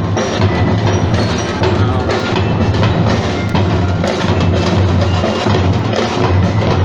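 A marching drum and bugle corps playing in the street: a steady beat of bass and snare drums, with a bright melody of struck bell notes ringing over it.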